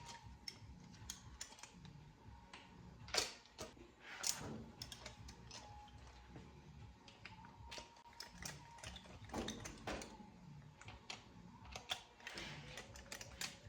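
Hand tools clicking and tapping on metal in a run of scattered light clicks, with a few louder knocks about three, four and nine seconds in.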